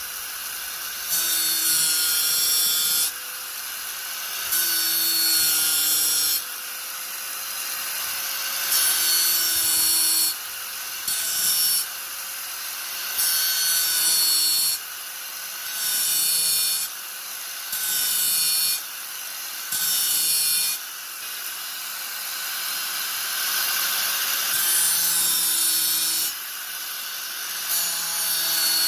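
Angle grinder running at steady speed with a constant motor whine, its disc pressed into the work again and again in loud rasping passes of one to three seconds, easing off between them.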